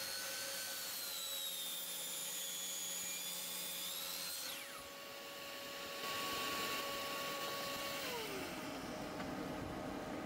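Compound miter saw running, its blade cutting a bevel into a wood block with a steady whine. About four and a half seconds in the motor is switched off and the whine falls away as the blade slows, while a lower steady hum carries on and fades near the end.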